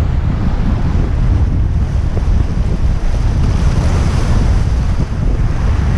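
Wind buffeting the microphone over waves breaking and washing across shoreline rocks; the surf wash swells about four seconds in.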